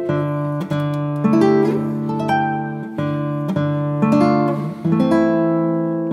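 Background instrumental music: a melody of plucked notes, each fading after it is struck, over sustained low tones.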